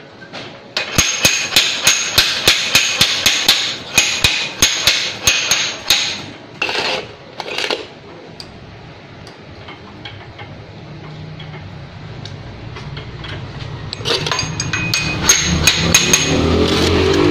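Rapid metal-on-metal hammering with a ringing clang, several blows a second, as a steel shaft and bearing on a plastic screen-printing machine are struck with a metal pipe; the blows stop about six seconds in. Later a low mechanical hum slowly builds and rises, with more metallic clinks near the end.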